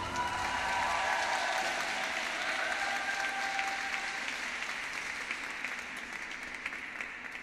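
Audience applauding at the end of a figure skating program, the applause slowly dying down.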